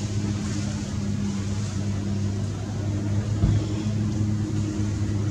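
A steady low mechanical hum, like an engine running at an even speed, with a single low thump about three and a half seconds in.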